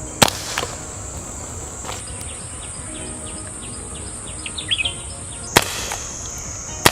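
STI Duty One 1911 CO2 BB pistol firing: three sharp shots, one about a quarter second in, one at about five and a half seconds and one near the end, the first followed by a fainter knock. A steady high insect drone runs underneath.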